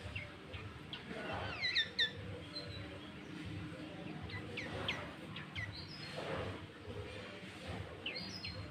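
Sooty-headed bulbul (kutilang) singing: clusters of short, sharp whistled notes about two seconds in, around five seconds and again near the end.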